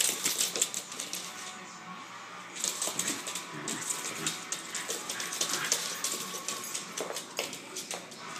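Two small dogs play-fighting: rapid clicking and scrabbling of claws on a hardwood floor, mixed with the dogs' play growls. It eases off briefly about two seconds in.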